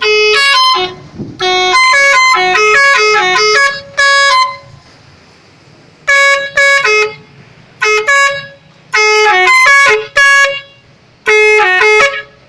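Telolet multi-tone horn playing its melody: quick runs of short pitched notes stepping up and down, sounded in about eight loud blasts with brief pauses between them, the longest pause a little before the middle.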